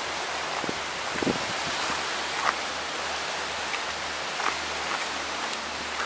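Steady hiss of sea water washing along a rocky shore. A couple of soft knocks come about a second in, and a few brief high chirps follow later.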